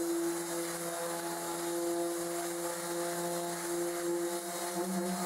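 Bosch ROS20VS random orbital sander running steadily with an 80-grit disc on plywood, a constant motor hum. Near the end the pitch rises a little before the motor is switched off and starts to wind down.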